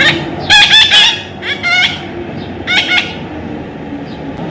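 Parrot calling: loud, repeated squawks in three short groups, pitch bending within each call, over a steady low background rumble.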